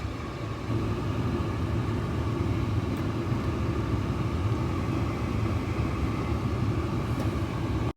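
Car climate-control blower fan running on high, air rushing steadily out of the dash vents over the low hum of the idling 2.0 TDI diesel engine; the airflow is restored now that the tinfoil tape blocking the fresh-air intake has been removed. The air noise gets slightly louder about half a second in.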